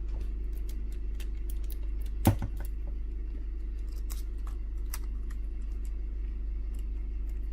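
Small clicks and ticks of adhesive tape and tools being handled on a workbench, with one louder knock about two seconds in.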